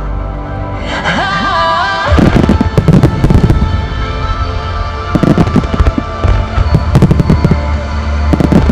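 Aerial fireworks shells bursting in clusters of sharp bangs, starting about two seconds in and coming again in several volleys, over music playing throughout.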